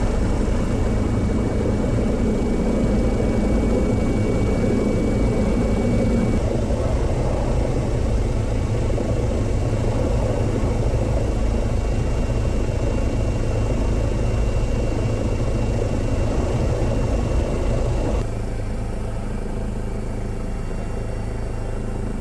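Helicopter engine and rotor noise heard from on board: a steady, loud drone that drops somewhat in level near the end.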